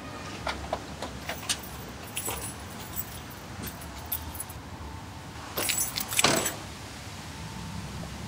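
Keys jangling and clicking as a man opens a car door and climbs out, with scattered light clicks and jingles over the first few seconds. The loudest jangle and clatter comes about six seconds in.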